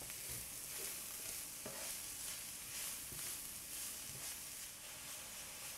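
Shredded napa cabbage and carrots sizzling in hot oil in a sauté pan while being stirred with a wooden spatula: a steady frying hiss with a few soft scrapes and taps of the spatula.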